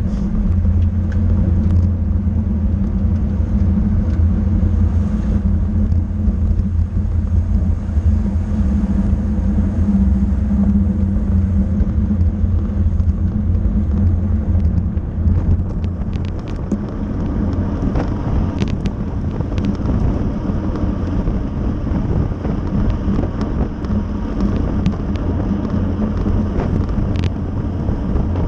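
Steady wind rush and road rumble from a road bike ridden at race speed, with wind buffeting the microphone. A few short sharp clicks come in the second half.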